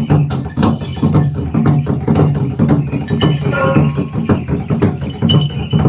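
Ritual percussion beating steadily, several strokes a second, over a low droning chanted voice.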